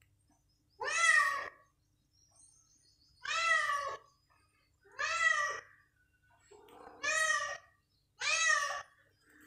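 A cat meowing five times, one call about every one and a half to two seconds, each meow rising and then falling in pitch.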